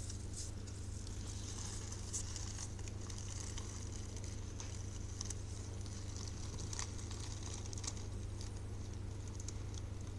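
Aquarium pump humming steadily, with a faint hiss of moving water and scattered small clicks.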